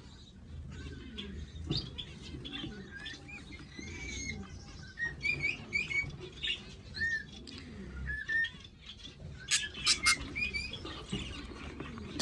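Aviary budgerigars chirping and chattering in a steady stream of short, rising and falling calls. About three-quarters of the way through, a quick run of loud sharp clicks cuts in over the chirping.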